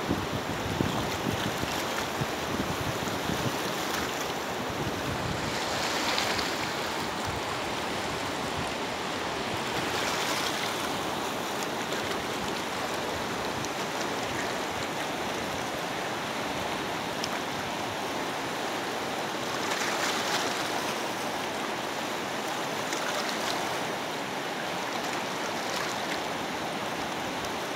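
Rushing water of a fast, turbulent river, running steadily and swelling a little louder a few times.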